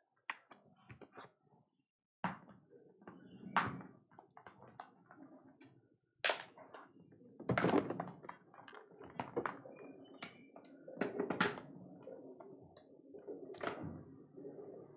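Irregular taps, knocks and thumps with soft rustling between them, from things being handled on a desk.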